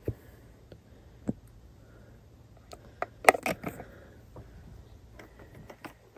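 Scattered light clicks and taps from a plastic hand-soap bottle being handled while soap is poured into a plastic cup, with a quick, louder cluster of clicks about three seconds in.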